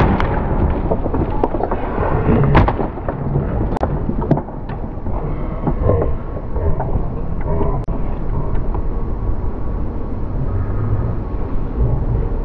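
An old couch crashing onto the lawn from a third-storey balcony: the tail of the loud impact at the very start, then several sharp knocks and clatters in the next four seconds. A steady low rumble of wind and handling on the camcorder microphone runs underneath.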